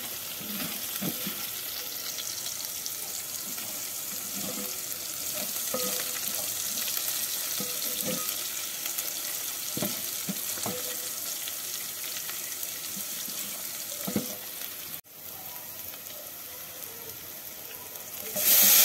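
Chopped spring onions sizzling in hot oil in a metal pot, stirred with a wooden spoon that scrapes and knocks against the pot now and then. Just before the end the sizzle jumps louder as diced tomatoes are tipped into the hot oil.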